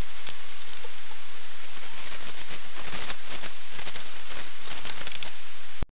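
Aluminium foil crinkling and rustling as it is handled: a dense run of crackles that cuts off suddenly near the end.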